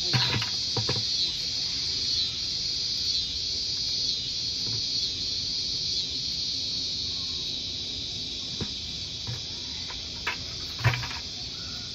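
Steady high-pitched insect chorus, typical of crickets or similar insects in a garden. A few sharp clicks and knocks come twice shortly after the start and twice near the end, the last one the loudest.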